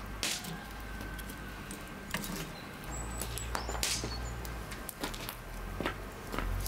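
Wood fire crackling and popping in the firebox of a steel wood-burning cookstove as split logs are fed onto the embers, with a few louder knocks of wood against wood and metal.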